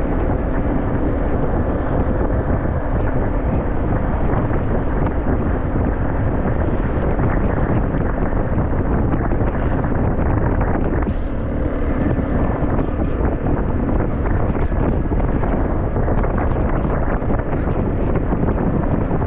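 Steady, loud wind buffeting the microphone while travelling, over a vehicle's continuous running noise.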